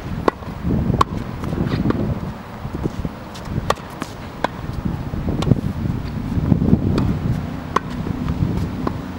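Tennis ball being hit with a racket and bouncing on a hard court: a series of sharp pops, roughly one every second or so, over a low rumble.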